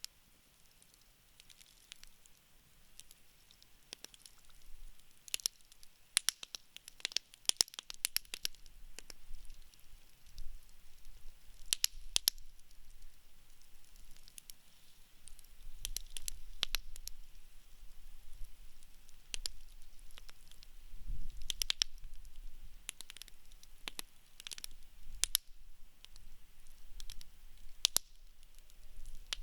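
Wood campfire crackling: irregular sharp pops and snaps of burning wood, coming in quick clusters at times, over a faint low rumble.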